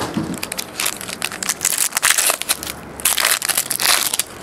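Foil wrappers of trading-card packs crinkling and tearing as the packs are opened, in irregular crackly bursts, loudest near the middle and again toward the end.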